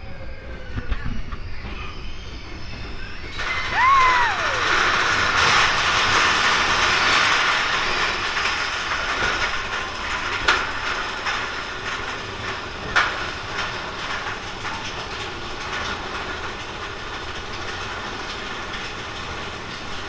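Big Thunder Mountain Railroad mine-train roller coaster rumbling and clattering along its track, getting louder about three seconds in. A short falling squeal sounds about four seconds in, and a couple of sharp clanks come later.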